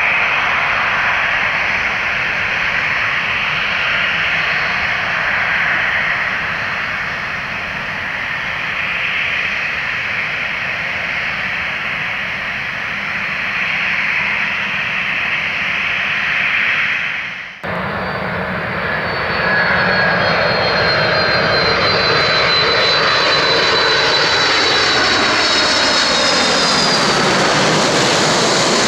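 Jet engines of a twin-engine widebody airliner running in a steady roar as it rolls down the runway after landing. After an abrupt cut about two-thirds of the way in, the four jet engines of a Boeing 747 on final approach grow loud as it passes low overhead, their whine sliding steadily down in pitch.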